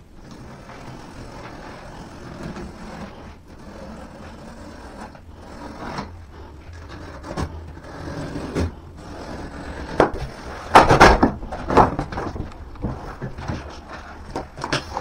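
Flat-pack desk panels and cardboard packaging being handled, rubbing and scraping against each other, then a cluster of loud knocks and clatters about ten seconds in.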